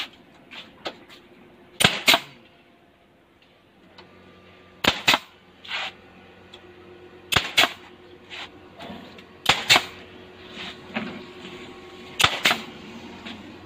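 Pneumatic nail gun driving nails through PU sandwich panels into the wall: five sharp double shots, each pair a quick snap-snap, about every two and a half seconds, with fainter knocks between as the gun is set against the panel.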